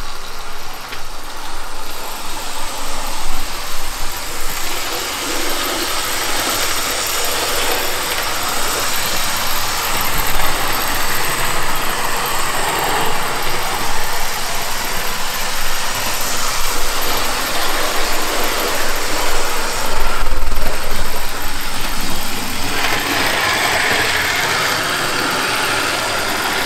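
OO-gauge model Class 29 Bo-Bo diesel locomotive running at speed with its coaches: the motor and gears give a steady, noisy rattling buzz, the 'bag of nails' sound, mixed with the wheels running on the track. It runs smoothly, without stalling. It swells a little about twenty seconds in, and its tone turns brighter soon after.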